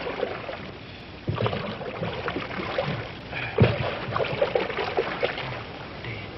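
Water splashing and sloshing around a small boat on the river, with a few sharp knocks, one about a second in and another past three and a half seconds.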